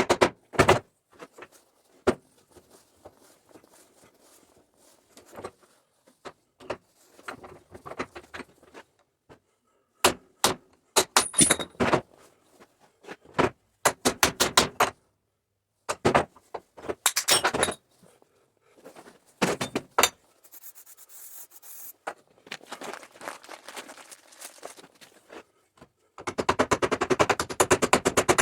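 Intermittent metallic clanks, knocks and scrapes of hand work on an electric forklift, in irregular clusters with short pauses between them, and stretches of fast repeated clicking near the start and near the end.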